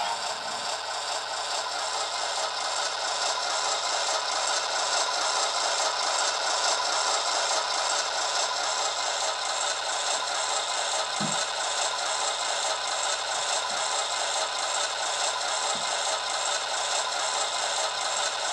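HO-scale X 5800 railcar model running slowly along the track, its LokSound sound decoder playing a steady diesel railcar engine sound through the model's small speaker over the rattle of its wheels and motor. A few faint thumps come in the second half.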